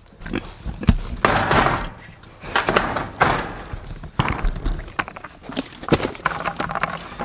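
A plastic bucket of food scraps knocking against the wooden and metal rails of a pig pen as it is tipped out, with thunks and rough rustling as the scraps spill into the pigs' feed pan.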